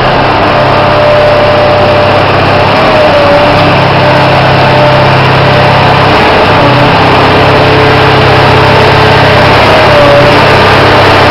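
Everdigm ETP1017 stationary concrete pump running: a loud, steady engine drone whose low hum shifts slightly every few seconds.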